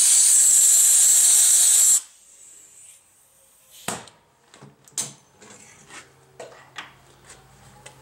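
Compressed-air blowgun hissing loudly, blowing metal shavings out of a freshly rethreaded bolt hole in a lawn mower cylinder head, then cutting off about two seconds in. A few light clicks and knocks follow.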